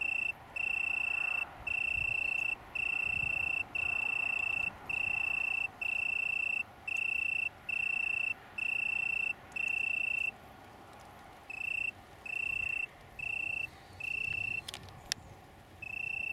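A male Italian tree cricket (Oecanthus pellucens) singing: one steady high note broken into even phrases of just under a second with short gaps, about one a second. About ten seconds in it stops briefly, then resumes in shorter phrases, with a couple of sharp clicks near the end.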